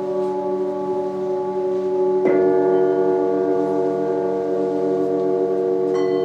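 Large Tibetan singing bowls ringing in long, overlapping tones. A bowl is struck about two seconds in, adding a tone that wavers with a slow beat, and another strike near the end adds higher tones.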